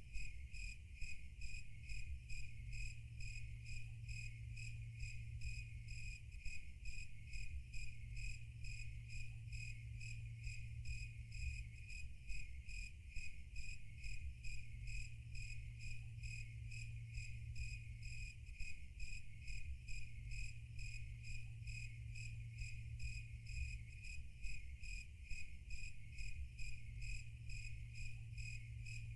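Steady cricket chirping, an even, rapid pulse of about four chirps a second, over a low steady hum.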